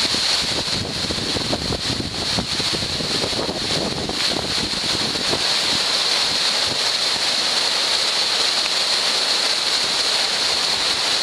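Flooded Bisenzio river rushing past in spate, a loud steady wash of churning muddy water. Wind buffets the microphone with low rumbling gusts over the first few seconds.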